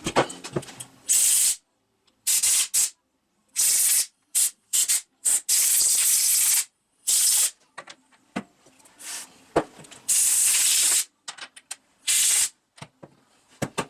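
Short blasts of pressurised spray hissing through chainsaw carburetor parts to clean them: about a dozen bursts, most well under a second, the longest just over a second, with a few light knocks between them.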